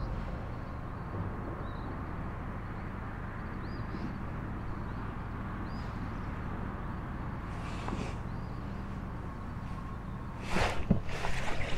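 Kayak's electric trolling motor running with a steady low hum and a thin whine, with faint bird chirps now and then. About ten and a half seconds in, loud splashing and sloshing at the water sets in.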